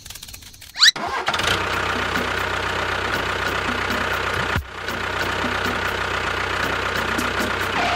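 An engine starting about a second in and then running steadily at idle, with a brief dip in level about halfway through.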